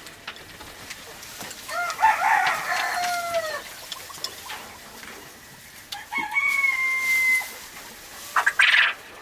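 Rooster crowing twice, each crow ending on a long held note, then a short harsh burst near the end.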